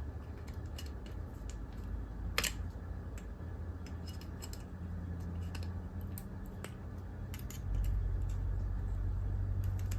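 Pliers clicking and scraping against metal inside an old TV switchbox while probing for a loose piece, with scattered light clicks and one sharper click about two and a half seconds in. A low steady hum runs underneath and gets louder near the end.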